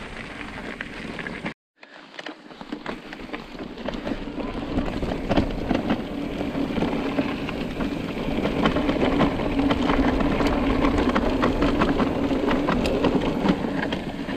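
Mountain bike riding along a rough singletrack: tyres rolling over gravel with many small rattles and knocks. The noise builds up after a brief drop-out near the start, and a steady hum joins it about halfway through.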